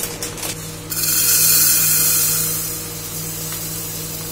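Plastic packet crinkling, then about a second in a sudden rush of dry couscous grains pouring into a plastic measuring jug, loudest at first and thinning out as the pour slows.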